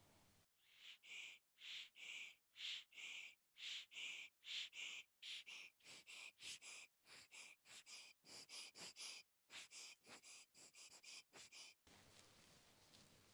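Faint, regular rubbing strokes right at the microphone, typical of close-miked ear-cleaning work at the ear. They come about two a second, quicken to about three a second partway through, and stop suddenly near the end.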